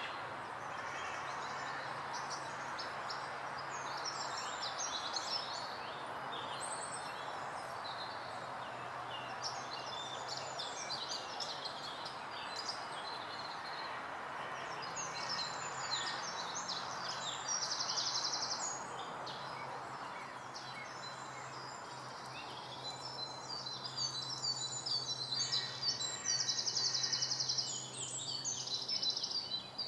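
Woodland birdsong: several small birds calling and singing over a steady background roar, with fast high trills about two-thirds of the way in and again near the end.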